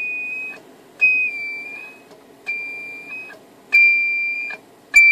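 A Browning Golden Eagle Mark IV CB radio's speaker giving its signature 'ping' each time the microphone is keyed: a high ringing tone, repeated about every 1.3 s, each lasting under a second and fading, with a click at its start and end. The ping is feedback from the receiver into the transmitter during the split second the radio is in receive and transmit at once, and its pitch shifts slightly with the microphone's position.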